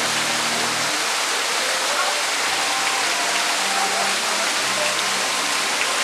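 Steady rush of a waterfall: an even, unbroken hiss of falling water.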